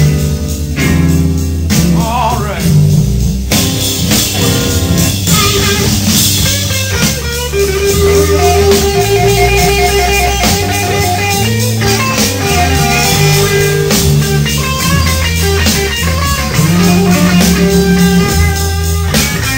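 Live blues-rock band playing an instrumental stretch of a slow blues, with electric guitar to the fore over bass and drums.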